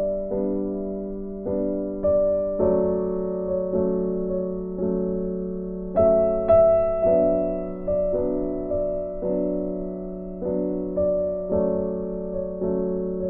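Background music: a slow, gentle piano tune, each note or chord struck and fading.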